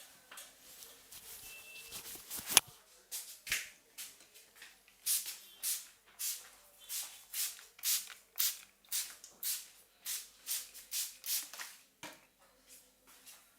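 Fingers rubbing vigorously through hair and over the scalp in a head massage, in quick scratchy strokes about two a second, with one sharp click near the start.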